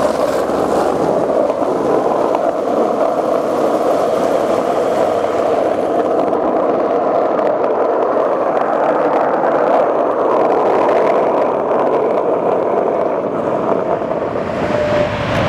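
Skateboard wheels rolling steadily over wet freeway asphalt, a continuous rolling noise with no breaks.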